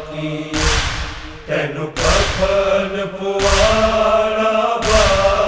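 Men's voices chanting a nauha refrain in long held notes, with four heavy group chest-beats (matam) landing about every second and a half.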